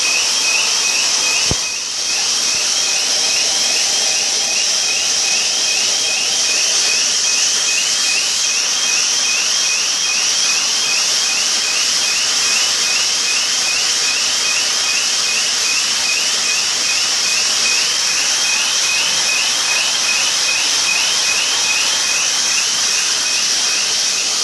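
An electronic alarm sounds continuously as a warbling tone that rises and repeats about twice a second. Beneath it is a steady hiss of heavy rain and pouring water.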